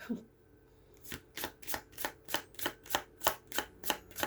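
A tarot deck being shuffled by hand, in even swishing strokes about three a second that start about a second in.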